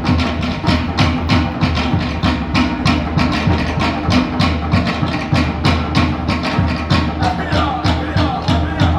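Pacific Island dance drumming: a fast, steady percussion beat of about four to five strokes a second.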